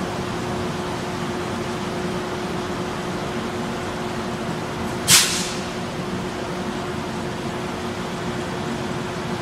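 Amtrak Surfliner Amfleet passenger coaches rolling past as the train departs: a steady rumble of wheels on the track with a constant low hum. A brief, sharp hiss about five seconds in is the loudest moment.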